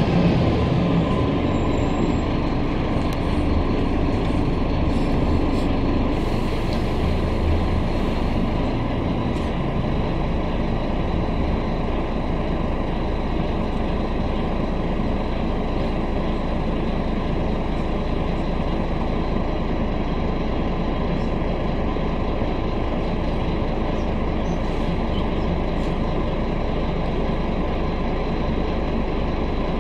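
Cabin sound of a Scania K310UB city bus on the move: the engine and drivetrain running under road and body noise. The engine note changes in the first several seconds, then holds steady.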